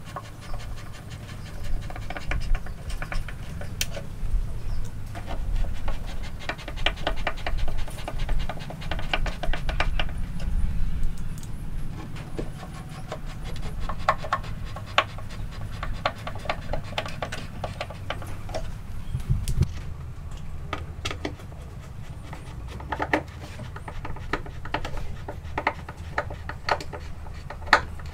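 Hand screwdriver driving wood screws into a wooden cabinet side, heard as runs of quick fine clicks lasting a few seconds each, over a low steady rumble.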